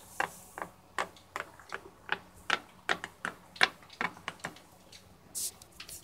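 Hard plastic toy figurines tapping and clacking on a tabletop as they are moved by hand, about two to three taps a second, with a short hiss near the end.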